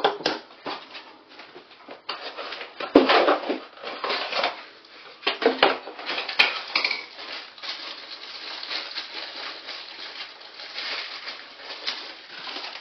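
Packaging for a replacement fan motor rustled and rummaged through, with small hard parts clattering, in search of wire connectors. A sharp knock about three seconds in.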